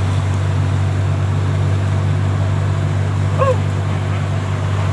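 Heavy rain and strong wind in a storm: a steady hiss over a constant low hum. A short, high yelp-like call sounds once, about three and a half seconds in.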